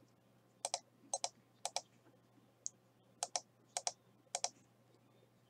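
Computer keyboard keys clicking in a slow, uneven run: about a dozen sharp clicks, mostly in quick pairs, stopping about four and a half seconds in.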